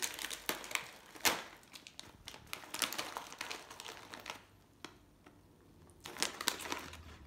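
Plastic snack bag of shrimp chips being handled and pulled open by hand, crinkling in irregular crackles for about four seconds. The crinkling then dies down, and another short burst of crackling comes near the end.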